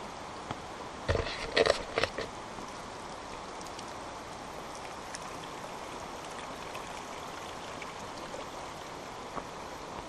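Steady rushing of a small stream, with a brief cluster of loud knocks about a second in.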